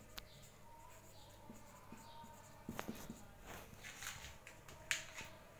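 Faint squeaks and scratches of a felt-tip marker writing on a whiteboard, mixed with a few short sharp clicks and taps.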